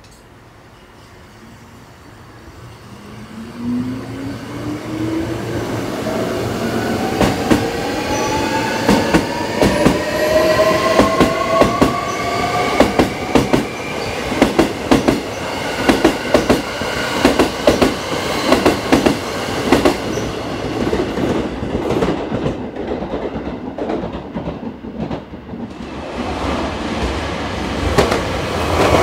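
Hankyu electric commuter train accelerating away from the platform, its motor whine rising steadily in pitch for about ten seconds. Then comes a long run of rapid wheel clicks over rail joints and points as the cars go by, fading out near the end.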